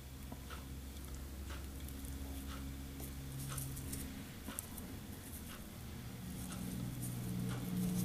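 Faint scattered ticks and rustles of fingers and tying thread working a bunch of elk hair onto a fly hook held in a tying vise, over a low steady hum.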